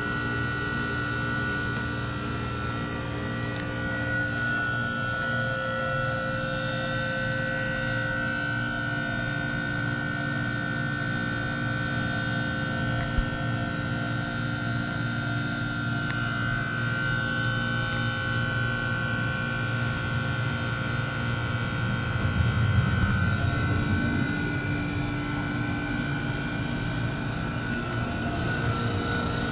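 2016 Trane XR14 heat pump running in defrost, its reciprocating compressor giving a steady hum with a high-pitched whine over a low rumble. It swells louder for a couple of seconds about three-quarters of the way through.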